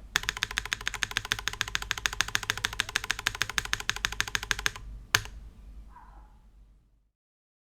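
Chilkey ND TKL mechanical keyboard with Kailh Blue Lotus switches being typed on fast, an even run of keystrokes about ten a second. The run stops just before five seconds in, one louder single key clack follows, and then the sound dies away to silence.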